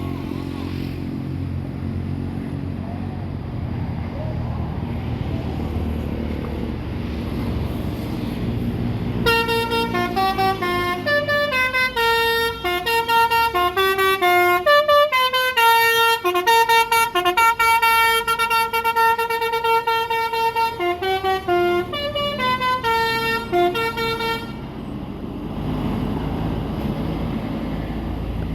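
A basuri telolet horn, the multi-note musical air horn on an Indonesian bus, plays a tune of stepping notes for about fifteen seconds, starting about nine seconds in. Before and after it there is only a low engine rumble.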